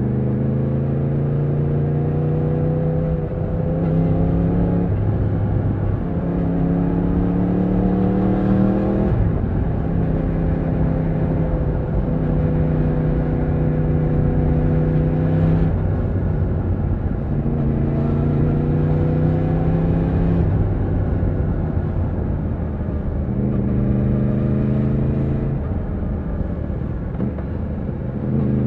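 Yamaha MT-10's crossplane inline-four engine pulling through the gears under way. Its pitch climbs in each gear and breaks off briefly at each quick upshift, with a long steady cruising stretch in the middle.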